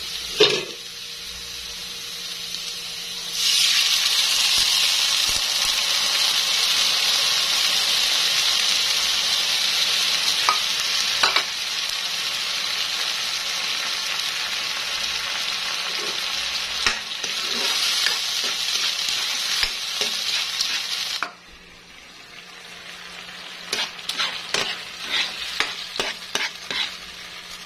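Chopped onion and aromatics frying in a nonstick wok with a spatula scraping, then a sudden loud sizzle about three seconds in as coconut milk fries and bubbles in the hot pan. The sizzle cuts off abruptly near the end, leaving a quieter simmer with a spoon clicking and scraping against the pan.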